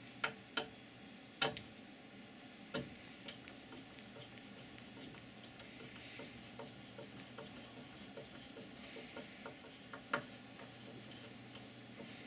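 Screwdriver loosening a small screw at the corner of a plexiglass machine bed: light scraping and a run of small, fairly regular ticks as the screw turns, with a few sharper clicks near the start and one more about ten seconds in.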